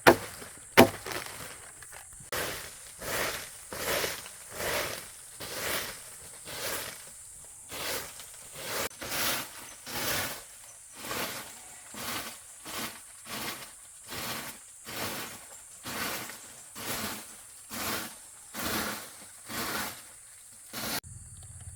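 A couple of sharp chopping blows, then a long run of regular rasping, rustling strokes from hand-tool work, about three every two seconds, which stop abruptly near the end.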